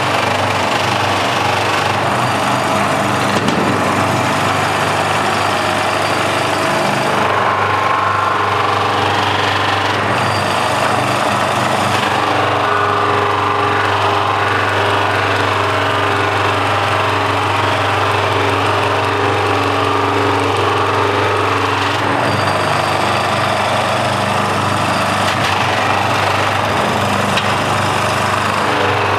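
Sever electric motor driving a cloth buffing wheel, running with a steady hum, while the spinning wheel rubs against a bar of polishing compound and then a plastic body panel being buffed.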